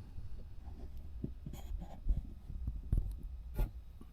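Faint handling noises: a few light knocks and scrapes of objects being moved about, over a low steady background rumble.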